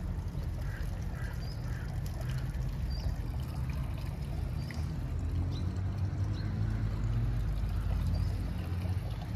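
Steady outdoor ambient noise with a strong low rumble and a few faint, short, high chirps scattered through it.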